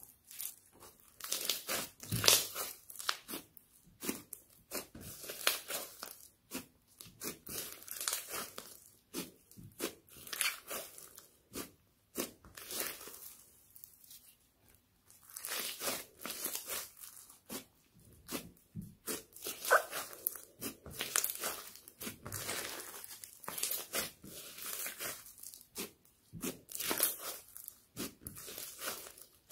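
Foam-bead slime (floam) being squeezed and stretched by hand: irregular crunchy crackling and tearing as the beads grind together and the slime pulls apart. The crackling eases to a brief lull about halfway through, then picks up again.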